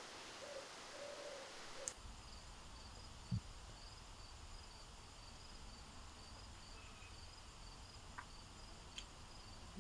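Faint forest night ambience. A few short, low hooting calls, then after a sudden change about two seconds in, a steady, rapid insect chirping with one soft thump.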